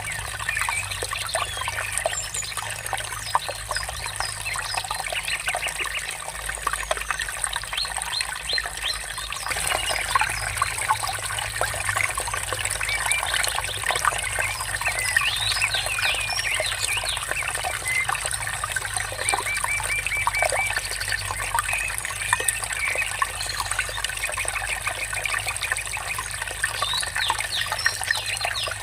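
Water trickling and murmuring steadily, with many small birds chirping and singing over it, including a quick run of evenly repeated notes about 20 seconds in.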